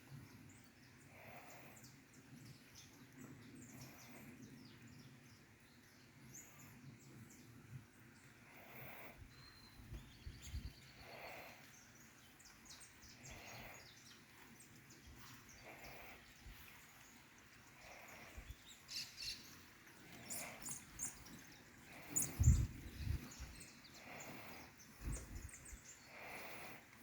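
Wild birds chirping and singing faintly, with many short high calls and a softer call repeating about every two seconds. A few low thumps come near the end.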